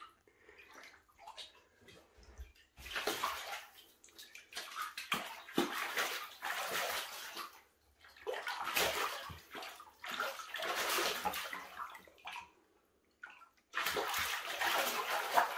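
Cougar splashing and sloshing in shallow water in a shower tray as it paws and noses after small crucian carp. The splashes come in irregular bursts, starting about three seconds in, with a short lull near the end.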